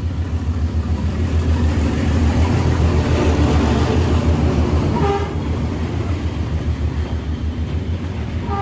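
A train rumbling along the tracks, with a short horn toot about five seconds in.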